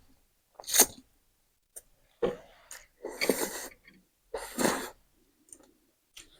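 Several short bursts of coughing and sharp breaths from a person eating very spicy noodles, the throat reacting to the chili heat.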